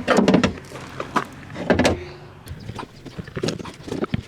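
Clattering knocks and scrapes of a car window regulator being maneuvered inside a door: metal rails and parts bumping against the door's inner panel, loudest just at the start and again about two seconds in, with lighter clicks after.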